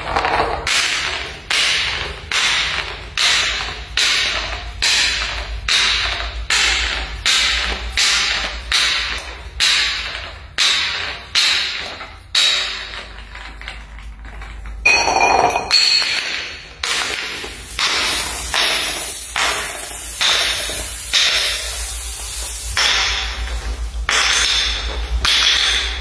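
Glass bottles tumbling down marble stairs, clacking hard on step after step about twice a second. About halfway through there is one louder strike with a glassy ring.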